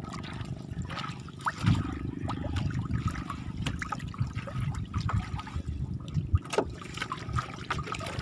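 Lake water splashing and trickling at the side of a wooden outrigger canoe as a fish-trap net is hauled up by hand, with scattered small knocks and splashes. A steady low rumble of wind runs underneath.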